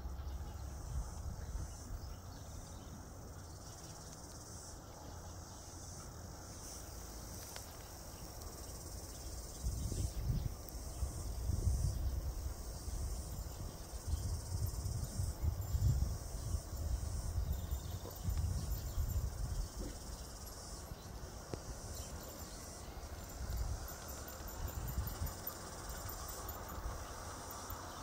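Insects chirping steadily in a high haze, over a low rumble that swells and fades, loudest from about ten to nineteen seconds in.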